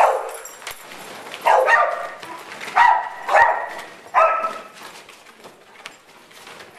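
Big dogs barking in play: about six barks, some in quick pairs, ending a little past halfway.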